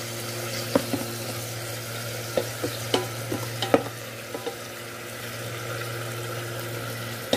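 Beef chunks sizzling in sesame oil in an Instant Pot's stainless steel inner pot while a wooden spatula stirs them, knocking and scraping against the pot several times in the first four seconds. The meat has begun to stick and burn on the bottom of the pot.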